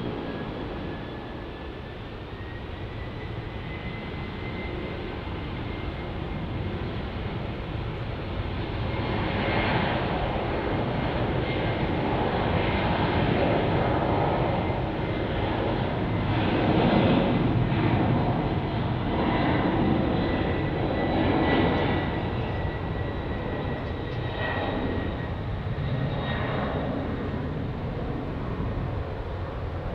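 Jet airliner engines: a whine that rises in pitch over the first few seconds and then holds steady, over a rumble that builds to its loudest about halfway through and then eases off.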